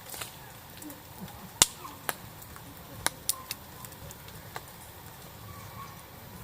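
Campfire wood crackling: a handful of sharp, irregular pops over a faint steady hiss, the loudest about a second and a half in.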